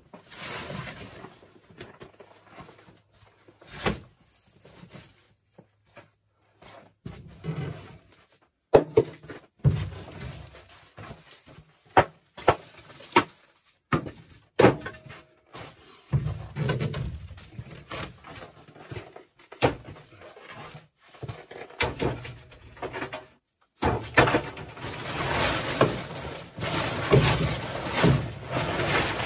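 Split firewood knocking and clunking as pieces are handled and stacked beside a wood stove: a run of sharp knocks about a second apart in the middle. Near the end comes a steady rustling and crinkling of a plastic tarp being gathered up.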